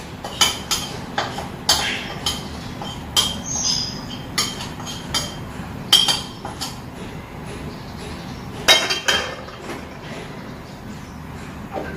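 Metal spoon clinking and scraping against a bowl and a wok as ingredients are scraped in: irregular sharp clinks with a short ring, loudest about six and nine seconds in.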